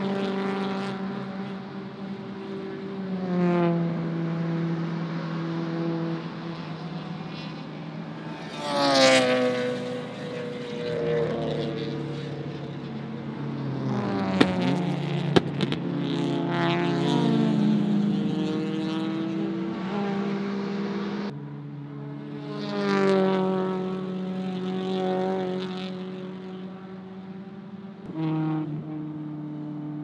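Touring race cars driving through a corner one after another, their engines revving up and down as they brake, shift and accelerate away, loudest as a car passes about nine seconds in and again about twenty-three seconds in. Two sharp pops come in the middle.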